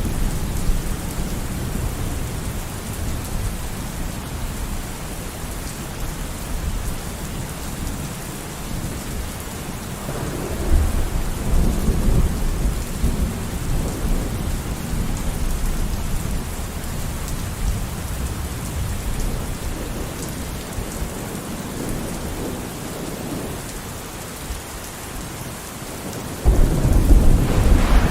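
Steady rain falling, with rolling thunder: a rumble dying away over the first several seconds, another swelling about ten seconds in, and a sudden loud clap of thunder near the end.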